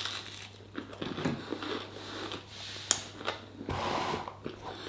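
Chewing and crunching a bite of toasted ciabatta garlic bread, close to the microphone, with a sharp click about three seconds in.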